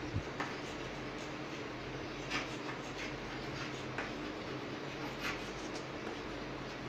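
Chalk writing on a blackboard: chalk tapping and scraping as words are written, with a few sharp taps at irregular moments over a steady background hiss.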